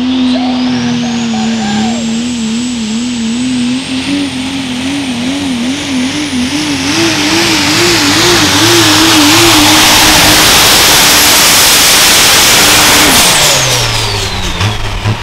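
Super stock Dodge Ram diesel pulling truck running flat out under the load of a pulling sled, its turbo whistle climbing high in the first few seconds and holding while the engine pitch wavers up and down. Near the end the throttle comes off: the engine and turbo whistle drop away to a lumpy, pulsing idle.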